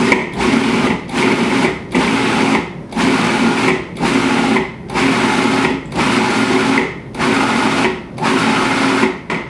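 Cuisinart food processor pulsed in short bursts about once a second, its motor whirring and the blade chopping avocado, onion and tomato into guacamole.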